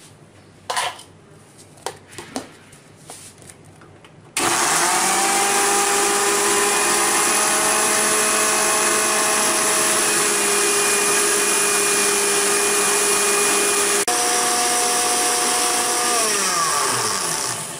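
Electric mixer grinder running at full speed, blending frozen watermelon pieces into a pulpy juice. It starts abruptly about four seconds in, after a few light clicks, cuts out for an instant about ten seconds later, and winds down with a falling whine near the end.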